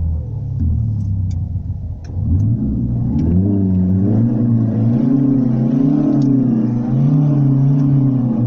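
Simulated engine sound from Renault's R-Sound Effect, played through a Renault Clio IV's cabin speakers. The engine note dips, climbs about two seconds in, then swings up and down as if the engine is being revved, falling away near the end.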